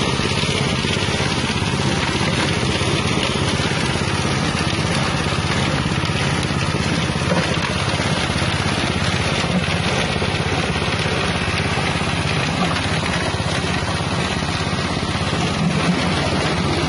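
Engine-driven spice grinding mill with a 6.5 hp engine, running steadily at working speed while grinding material.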